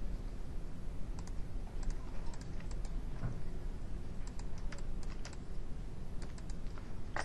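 Computer keyboard and mouse clicking: scattered, irregular single clicks over a steady low hum.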